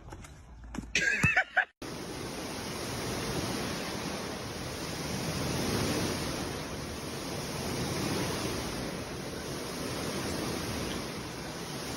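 Water in a glass-sided rooftop swimming pool sloshing and churning in waves: a steady rushing that swells and eases every couple of seconds. Before it, in the first two seconds, a few sharp knocks and a short cry.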